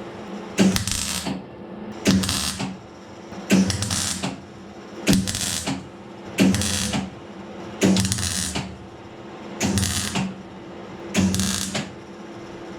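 A welder laying short, evenly timed welds to stitch a patch panel into rusted sheet-metal bodywork: about eight crackling bursts roughly a second and a half apart, each about half a second long, over a steady electrical hum.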